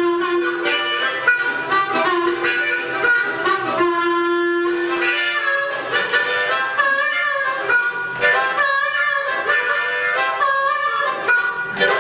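A wind instrument plays a melody with long held notes over steady djembe hand-drum beats.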